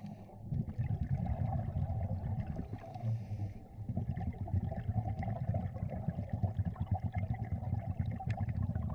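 Muffled underwater noise picked up by a dive camera: a steady low rumble with faint crackling and ticking over it, and a short hiss about three seconds in.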